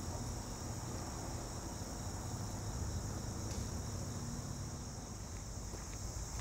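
Steady, high-pitched chorus of singing insects, with a low rumble underneath.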